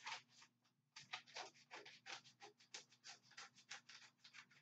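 Folded orange construction paper being cut up into cards: a faint, quick series of short papery rasps, several a second, starting about a second in.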